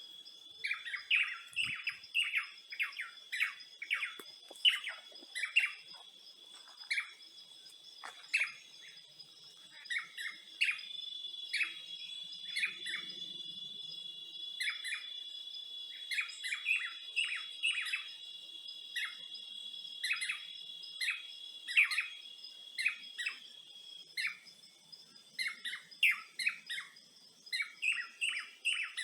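Birds chirping over and over in short, quick, falling notes, against a steady high-pitched insect drone.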